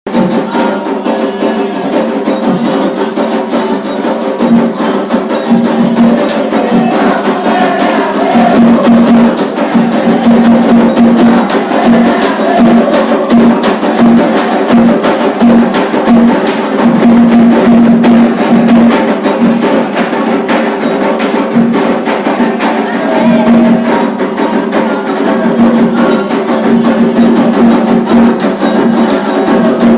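Candomblé ceremonial percussion: hand drums with a dense, fast clicking beat on top, playing continuously.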